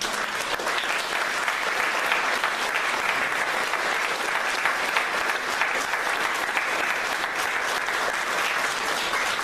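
Council members and audience applauding steadily, a dense sustained clapping that greets the announcement of the mayoral election result.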